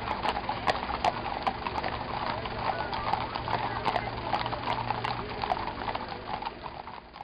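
Hoofbeats of a galloping horse, a run of sharp irregular clops over a steady background, fading out near the end.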